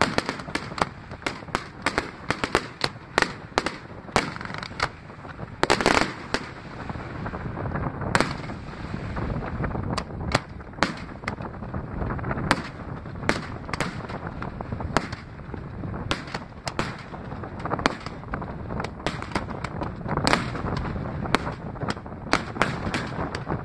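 Aerial fireworks display: a rapid string of shell bursts and crackling, densest in the first few seconds, with one heavy burst about six seconds in, then steady bangs and crackle throughout.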